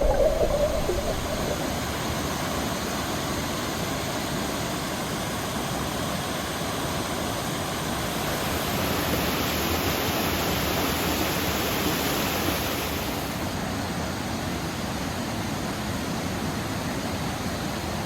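Rushing water of a mountain creek, a steady rush that grows a little louder and brighter from about halfway through before settling back.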